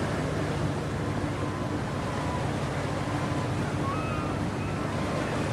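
Steady drone of a fishing boat's diesel engine across open water, with wind and water noise over it. A few faint, short wavering bird calls come in about four seconds in.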